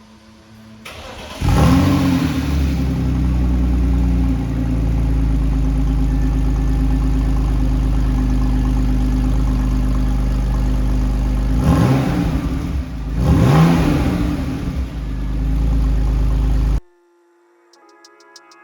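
Car engine running at a steady idle, revved twice near the end, then cutting off suddenly.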